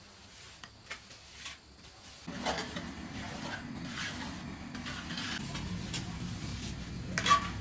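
Hand trowel scraping and smoothing wet cement mortar on a concrete floor: soft scrapes and rubbing, steadier from about two seconds in, with a sharp click near the end.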